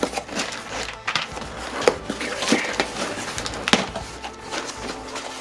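Cardboard shipping box being opened by hand: flaps pulled apart and brown packing paper rustling, with a handful of sharp cardboard cracks and scrapes at irregular intervals.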